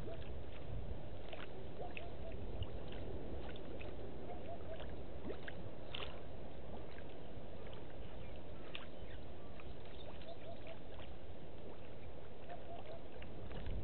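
Steady outdoor bush ambience: a low rumble like wind on the microphone, with scattered short snaps and clicks and a few brief chirps in twos and threes.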